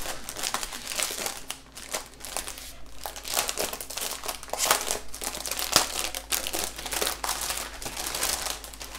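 Clear plastic packaging crinkling and crackling irregularly as it is opened and pulled off a strip of bagged diamond painting drills.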